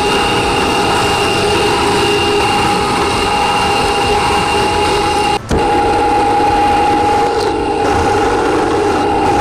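Drill press running steadily while drilling into a thin metal strip, first with a small twist bit and then with a countersink bit, giving a constant whine. The sound drops out for a moment about five and a half seconds in.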